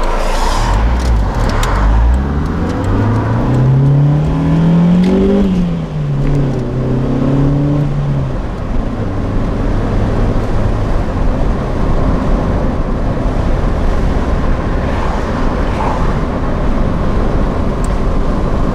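1989 Honda Accord LXi's four-cylinder engine revving up hard under acceleration, its pitch climbing for about five seconds, then dropping at a gear change and settling into a steady cruise over road noise.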